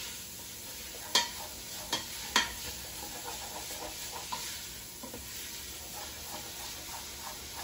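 Italian sausage sizzling steadily as it browns in a stainless steel pot, stirred with a utensil that knocks sharply against the pan a few times in the first few seconds.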